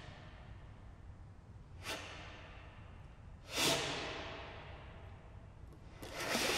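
Breathy air tones blown through a contrabass clarinet: three rushes of air with no clear pitch, the second one loudest and starting suddenly, the last swelling up near the end. Each dies away slowly in the long echo of a large domed hall.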